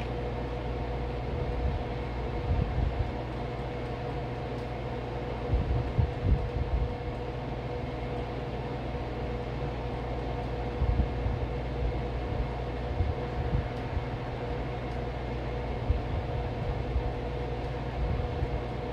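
A steady machine hum with several fixed tones, with irregular low thuds now and then.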